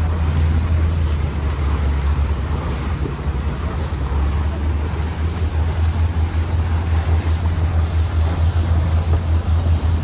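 A motorized abra water taxi's engine running with a steady low drone, with water and wind noise over it as the boat crosses the creek.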